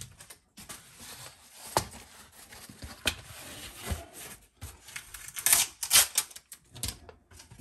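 A cardboard shipping box being opened and its packaging handled: scattered clicks, scrapes and rustles, loudest about five and a half to six seconds in.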